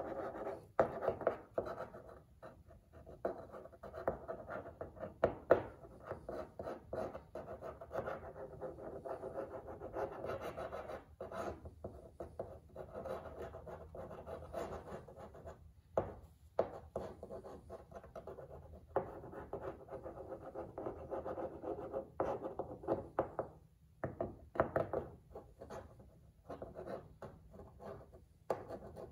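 The nozzle of a tube of 3M black weatherstrip adhesive scraping and rubbing along the fiberglass hood's seal channel as the glue is squeezed out, in irregular strokes with a few short pauses.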